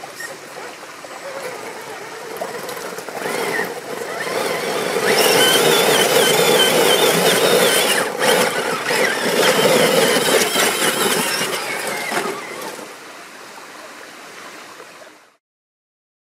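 Traction Hobby Cragsman Pro 1/8-scale RC crawler's electric motor and gear drivetrain whining under load as it climbs wet rock. The wavering whine swells for several seconds in the middle, eases off, then cuts off suddenly near the end.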